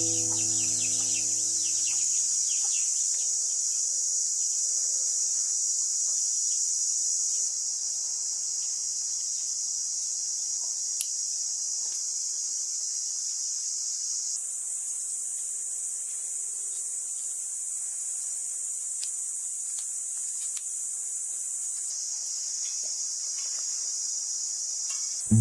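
Steady, high-pitched insect chorus that jumps up and down in level a few times, with a few faint clicks.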